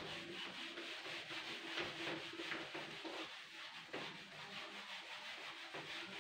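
Whiteboard eraser rubbing marker ink off a whiteboard in a run of short, irregular wiping strokes.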